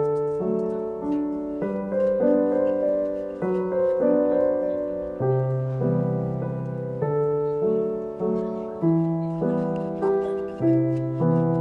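Background piano music: a gentle melody over slow, sustained chords.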